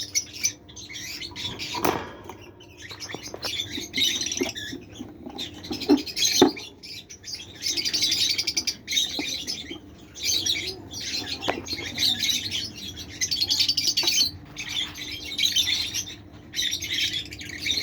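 Caged lovebirds chattering in high-pitched chirps that come in bursts of a second or two, with a few sharp knocks among them.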